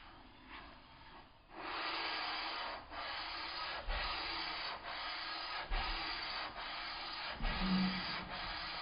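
Steel plane iron from a Stanley No. 5 jack plane being lapped flat on a water stone, rubbed back and forth in steady strokes about one a second, starting about a second and a half in.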